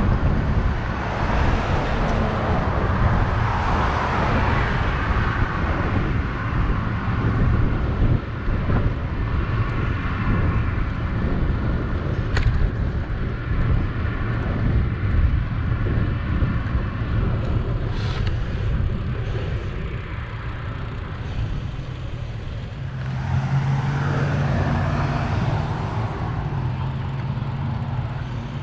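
Steady low rumble of wind and road noise on a bicycle-mounted camera's microphone while riding along a city street, with car traffic passing in the road. Two sharp clicks come midway, and a low steady hum near the end.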